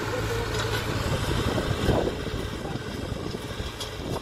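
Orient Bull Power 565 Extra tractor's engine running under load as it pulls an 18-disc harrow through dry soil: a steady drone that grows a little fainter after about two seconds.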